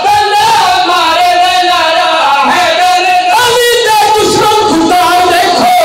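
A man's voice singing a qasida, a devotional poem, in a loud melodic recitation into a microphone, with long held notes that waver in pitch.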